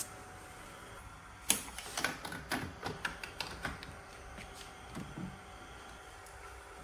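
A run of light, sharp clicks and knocks on a workbench as a mains plug and switch are worked to reconnect power to an opened TV, the first click the loudest; two fainter knocks follow near the end.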